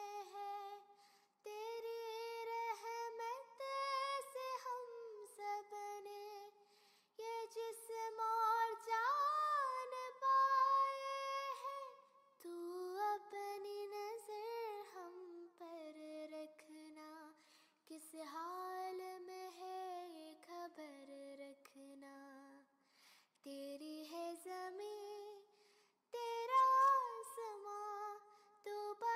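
A high solo voice singing a slow, melismatic devotional song in long phrases with short pauses, with little or no accompaniment.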